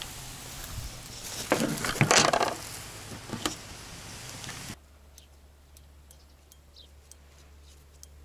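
Fishing tackle and a plastic bag handled on a camp table: rustling with a cluster of sharp clicks and clatter, loudest about two seconds in. A little past halfway it cuts off suddenly to a quiet low hum with a few faint ticks.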